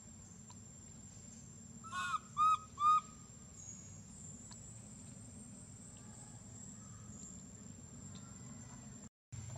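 Baby macaque crying: three short, high whimpering coos in quick succession about two seconds in, each rising then falling in pitch. It is the cry of a hungry infant wanting its mother to nurse it.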